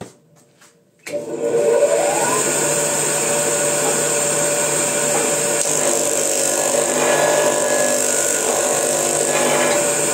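Electric disc sander switched on about a second in: the motor spins up with a rising whine, then runs steadily at full speed.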